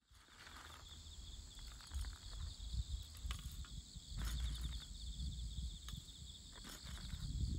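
Hand-cranked coffee mill grinding beans: uneven crunching and clicking as the crank turns. Under it are a low rumble and a steady high-pitched buzz.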